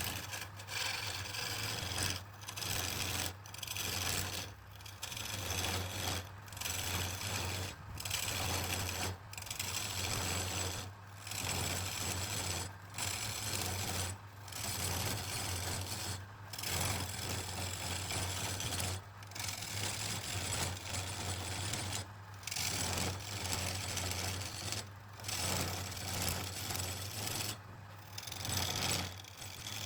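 Wood lathe motor humming steadily while a tool or abrasive scrapes the spinning wood in repeated passes, each pass breaking off briefly every one and a half to two seconds.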